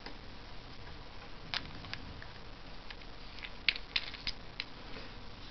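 Light clicks and taps of the GS2100 camping gas stove's metal pot supports and plastic parts being handled and fitted back together, a few scattered at first, then a quick run of them about three and a half to four and a half seconds in.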